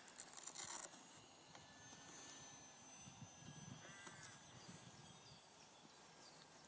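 Near silence: faint outdoor ambience with a brief, faint pitched call about four seconds in.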